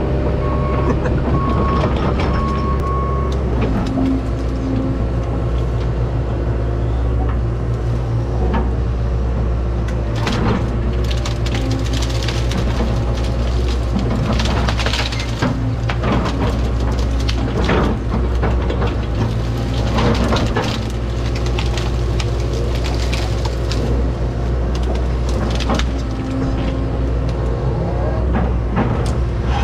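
Excavator's diesel engine running steadily under load while its bucket and thumb grab and drag evergreen brush and logs. Branches crack and crunch repeatedly through the middle. A reversing alarm beeps during the first three seconds.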